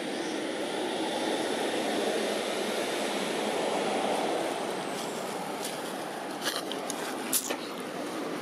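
Steady low rumbling noise that swells a little and then eases, with a few sharp crackles about six to seven seconds in.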